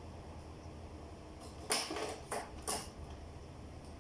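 Hand tools and parts clicking and clacking during electrical panel wiring work. The clicks come as a cluster of three or four sharp ones past the middle, the first the loudest, over a steady low hum.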